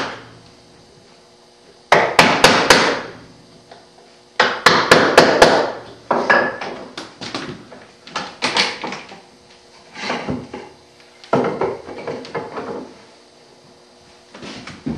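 Quick taps of a mallet on a chisel chopping out dovetail waste, in two rapid runs of about half a dozen strikes each. These are followed by irregular wooden knocks and clatter as the workpiece is handled on the bench.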